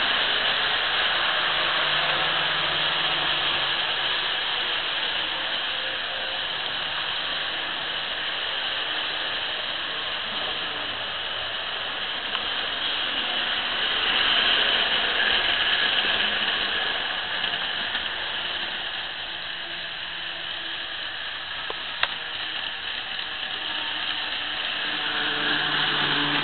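Model trains running on a layout: a steady mechanical whir and rattle of wheels on track, with faint motor hum that shifts in pitch and swells a little about halfway through.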